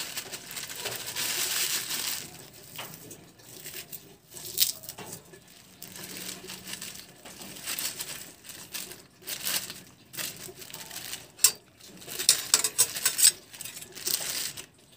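Thin plastic bag crinkling as crushed pork chicharon is shaken out of it into a wok of noodles, with sharp clinks of a metal spatula against the pan, loudest near the end.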